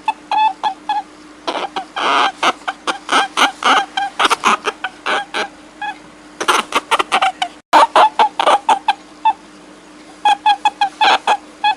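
Rapid runs of short, high-pitched animal calls, several a second, broken by brief pauses, over a steady low hum.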